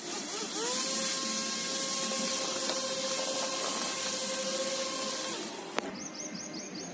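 Small DC motor spinning up with a quickly rising whine, running at a steady pitch for about five seconds, then switching off, followed by a single sharp click.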